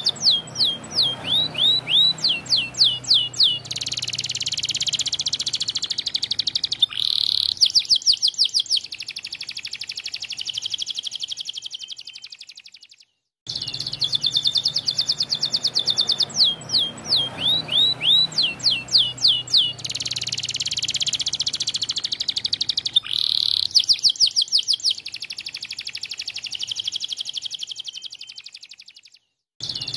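White canary singing a long, rapid song of quick repeated trill notes and buzzy rolls, broken by a short silence about halfway through and another near the end. The same stretch of song plays twice over.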